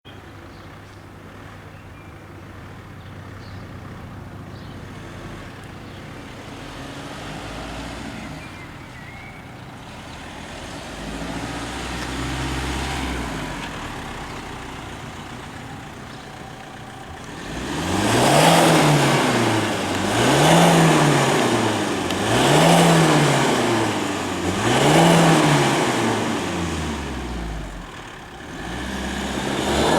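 Opel Astra GTC's 1.9 CDTI four-cylinder turbodiesel, heard through an Ulter aftermarket exhaust with a 120x80 mm tailpipe. It idles with a gentle rev a little before halfway, then is revved in four quick blips about two seconds apart, with one more near the end.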